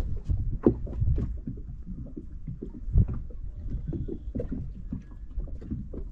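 Small waves slapping against the hull of a bass boat: an uneven low rumble of irregular soft thumps, with one sharper knock about three seconds in.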